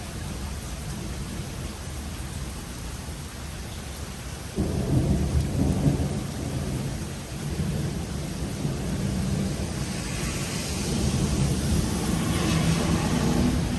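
Thunder rumbling over steady rain. A louder rumble sets in suddenly about four and a half seconds in and rolls on, and the hiss grows louder near the end.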